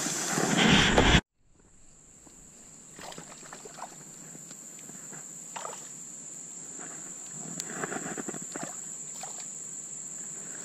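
A loud rustle of handling noise cuts off abruptly about a second in. Then comes steady high insect chirring, with scattered light knocks and clicks of hands and fishing gear against a plastic kayak.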